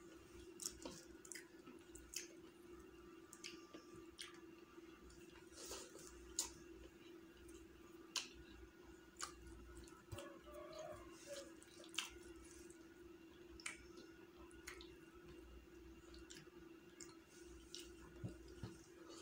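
Close-miked eating sounds from a man eating rice and chicken biryani with his fingers: soft chewing with irregular sharp wet mouth clicks and smacks, about one a second, over a faint steady hum.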